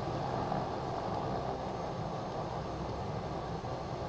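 Cessna Grand Caravan's Pratt & Whitney PT6A turboprop engine running steadily at taxi power, propeller turning, as the plane rolls slowly down the runway.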